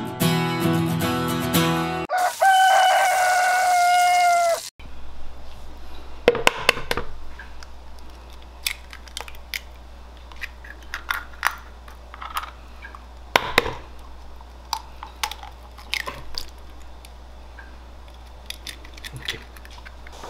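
Acoustic guitar music ends, and a rooster crows once. Then kitchen handling sounds follow: eggs are knocked sharply against a mixing bowl and cracked into it, with two loud cracks several seconds apart and lighter clicks in between over a low steady hum.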